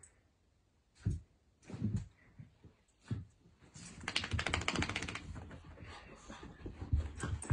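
Two small dogs playing and scuffling on the floor: a few dull thumps, then a fast run of clicking about four seconds in as their feet scrabble, followed by softer scuffling.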